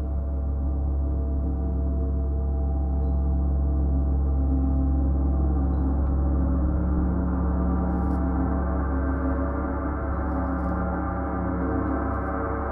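Paiste 34-inch Symphonic gong played continuously with a mallet: a steady, deep wash of many overlapping ringing tones that swells a little in the middle.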